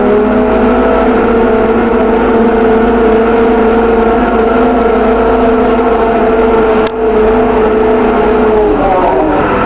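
Caterpillar IT914 wheel loader's diesel engine running steadily at high revs. It dips briefly about seven seconds in, then the revs drop near the end.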